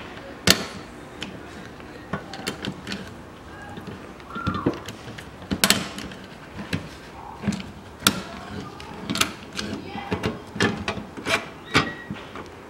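An ordinary hand rivet gun, its nosepiece drilled out to take a larger rivet, being squeezed again and again to set a rivet. It makes a string of sharp, irregular metallic clicks and clacks.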